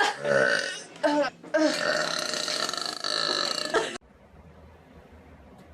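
A person burping loudly several times: short burps, then one long drawn-out burp of about two seconds that cuts off abruptly about four seconds in, leaving faint room noise.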